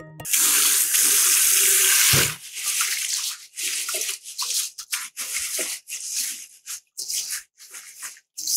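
Kitchen tap running into a stainless steel bowl of raw short-grain rice for about two seconds, then stopping with a dull knock. After that come hands scrubbing and swishing the wet rice grains in the bowl in a quick run of short strokes, washing off the starch before cooking.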